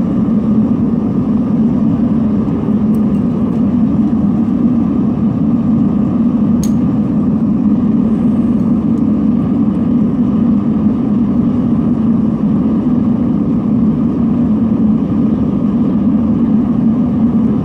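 Gas-fired melting furnace running flat out with its blower fan: a loud, steady roar of the burner.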